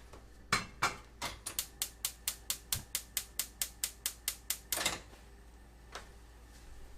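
Knife chopping on a cutting board: a quick, even run of strokes, about six a second, lasting about four seconds, then a single stroke near the end.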